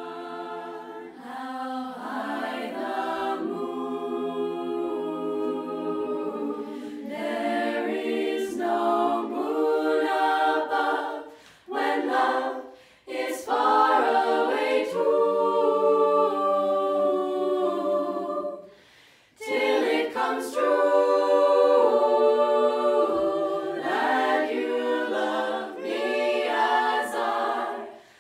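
Women's a cappella group singing together in close harmony, several voices held in long sustained chords, with a few brief pauses between phrases.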